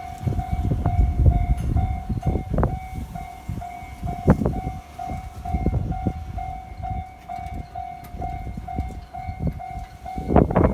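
Japanese level-crossing warning bell ringing one repeated tone about twice a second while a train passes over the crossing, its wheels rumbling and clattering over the rail joints, with a sharper burst of clatter near the end.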